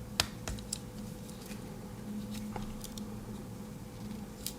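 Faint, scattered clicks of a Swiss Army knife being handled as one of its tools is opened, several in the first second and then a few more spaced out, over a steady low electrical hum.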